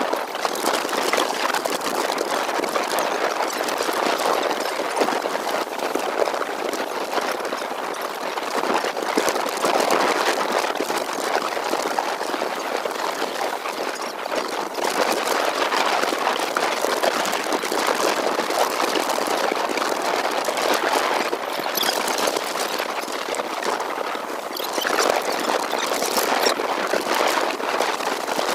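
Steady rushing noise of strong wind and choppy water, swelling and easing in loudness every few seconds.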